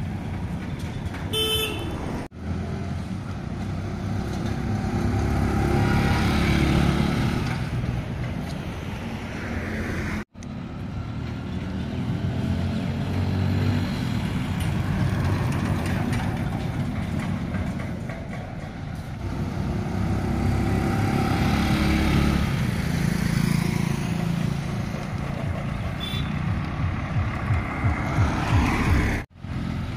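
Motorcycle engine running on the road while towing a food cart, its note rising and easing as it rides. A vehicle horn toots briefly about a second and a half in.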